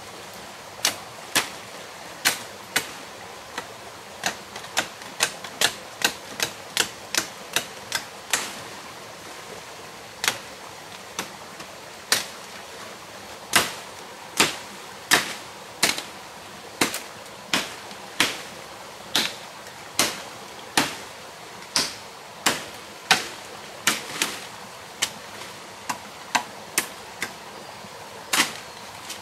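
Machete blade chopping into a freshly cut green branch: sharp, separate strikes at an uneven pace of one or two a second, over a steady background hiss.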